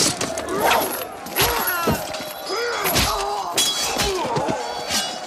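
Battle melee sound effects: many men yelling and screaming over one another, with frequent sharp clashes and thuds of weapons striking.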